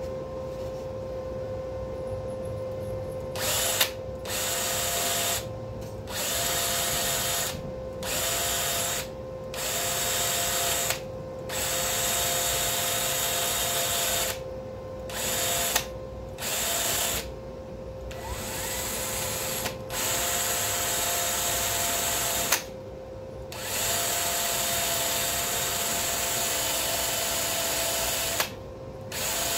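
A handheld rotary power tool abrading steel to bare, shiny metal as prep for welding, run in about a dozen bursts of one to five seconds that begin a few seconds in, each carrying a steady whine. A steady hum runs underneath.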